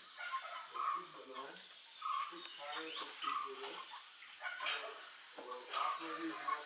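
Steady high-pitched drone of insects, with a bird repeating a short call about once a second over it.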